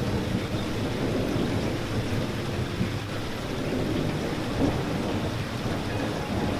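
Steady rain falling: an even, unbroken rush with a low rumble underneath.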